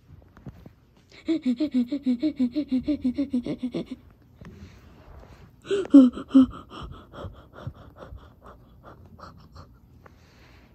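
A person's voice making two runs of quick, trembling pulses. The first is even and lasts nearly three seconds. The second starts loud about six seconds in and tapers off.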